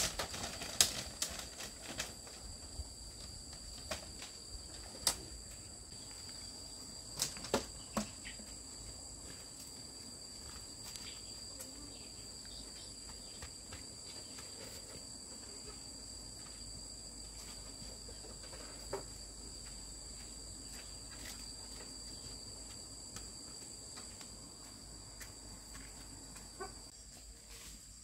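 Insects, likely crickets or cicadas, chirring steadily in two high pitches, with a scatter of sharp knocks and clicks in the first eight seconds and a few more later.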